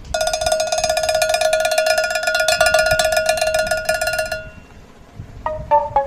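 A bell-like ringing tone on one steady pitch, pulsing very rapidly, that stops about four and a half seconds in. Near the end, plucked notes of background music begin, stepping downward.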